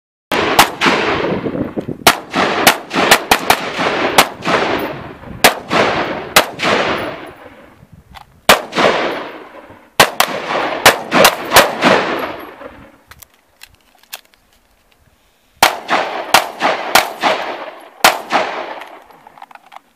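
AR-15 rifle firing in quick semi-automatic shots, each shot trailing off in an echo. There are two strings of rapid shots, the second starting after a pause of about three seconds.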